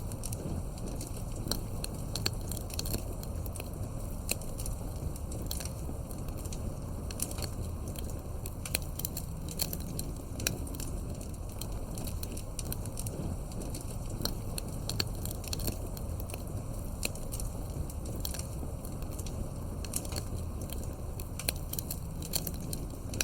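Wood fire in a fireplace burning with frequent irregular crackles and pops over a low, steady rumble of flame.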